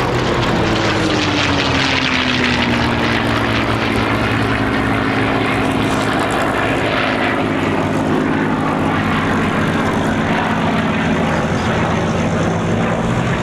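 Lockheed P-38L Lightning's twin Allison V-1710 V12 engines passing in flight. The engine note falls in pitch over the first few seconds as it goes by, then settles into a steady drone.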